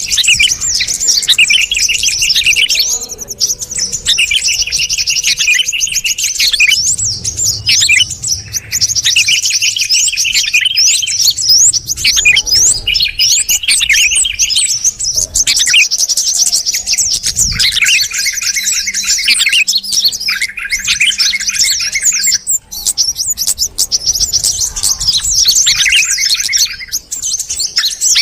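Yellow-vented bulbul and sooty-headed bulbul calls mixed together, loud and unbroken. Dense chattering chirps and rapid trills come in overlapping bursts of a few seconds each. A bird-lure recording made to draw small birds in.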